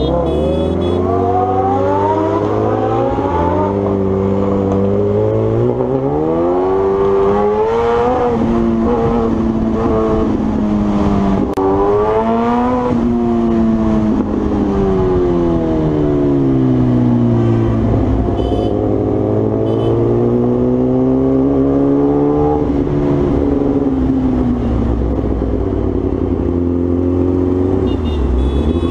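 Kawasaki Ninja sport bike engine heard from on board, climbing in pitch through several quick upshifts over the first dozen seconds. It then falls as the bike slows, rises once more and drops back to a steady note near the end.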